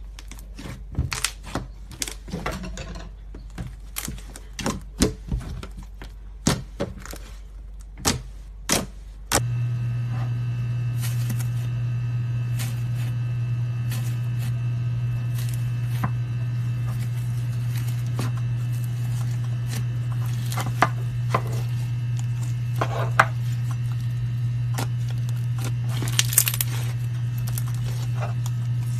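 Slime being squeezed and pressed, with many sharp clicks and crackles. About nine seconds in, a steady low hum starts and the clicks become sparser.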